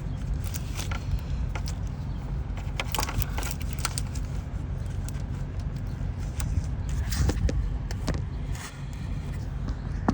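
Hand work on a BMW X3's engine around its VANOS solenoids: light metallic clicks, taps and scrapes of parts and connectors being handled, scattered irregularly and busiest a few seconds before the end, over a steady low rumble.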